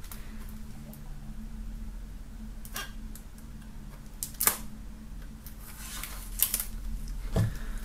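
Knife blade slitting the shrink-wrap film along the edge of a plastic CD jewel case: a handful of short clicks and scrapes, the clearest about four and a half seconds in, over a low steady hum.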